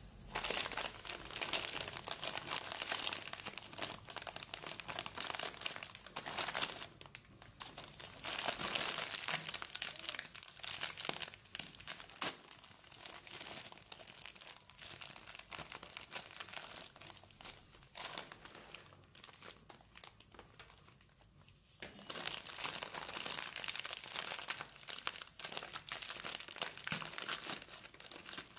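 Plastic snack bags of popcorn being crinkled, squeezed and torn open by hands in plastic gloves, in irregular bursts with a quieter stretch about two-thirds of the way through.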